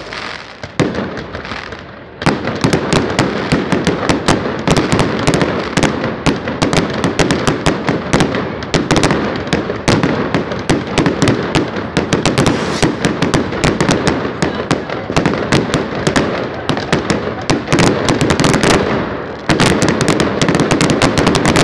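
Fireworks going off in rapid succession: a dense, continuous run of bangs and crackles, with a brief lull about two seconds in before the volleys start again.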